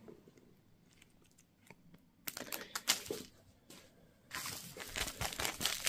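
Plastic packaging crinkling and rustling as small lure packets are handled and opened. It is quiet at first, with a few scattered clicks and rustles from about two seconds in, and steady crinkling from about four seconds on.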